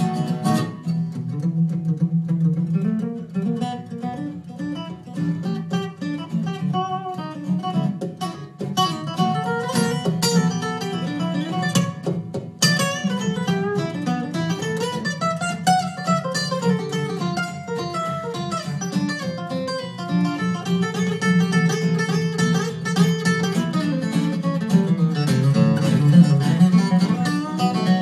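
Two acoustic guitars playing an instrumental passage together, with quick picked melody lines over the chords.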